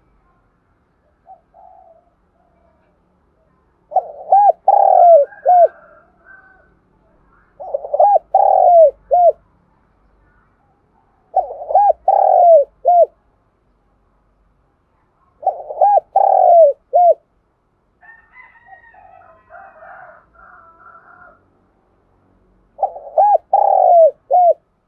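Spotted dove cooing its three-to-four-note song in five phrases, each about a second and a half long and about four seconds apart, with a longer pause before the last. It is a caged decoy bird calling to lure wild spotted doves.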